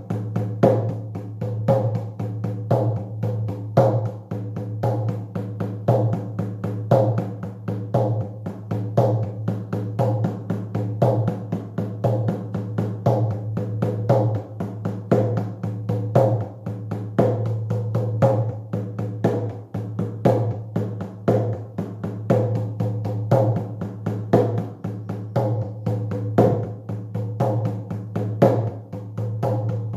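Shamanic hand drum beaten in a fast, steady, unbroken rhythm, the driving beat used to induce a trance state. A low ringing hum sustains beneath the strokes.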